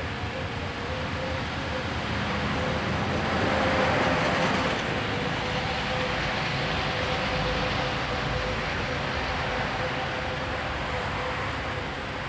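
Level-crossing warning bell ringing steadily over a bed of road noise, with a broad rush of noise swelling and fading about three to five seconds in.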